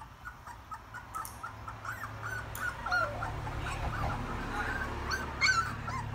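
Puppies whimpering: a rapid run of short, high squeaks, several a second, that grows louder after the first second or so, with one louder cry about five and a half seconds in.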